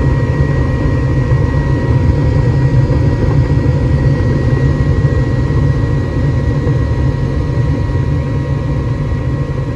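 Gas furnace running just after ignition: a steady low rumble of the lit burners and fans, with a faint steady whine over it.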